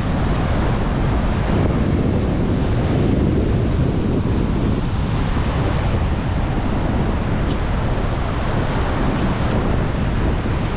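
Wind buffeting the microphone, heavy and low, over the steady wash of ocean surf on a beach.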